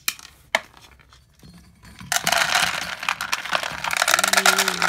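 Dry dog kibble poured from a scoop into a food bowl, the hard pellets rattling and clinking against it for about three seconds, after a couple of light clicks at the start. Near the end a dog whines briefly in a steady tone.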